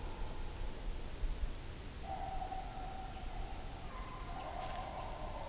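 Hunting hounds baying on a fox's trail: long drawn-out bays starting about two seconds in and again near the end, over a steady high drone of insects.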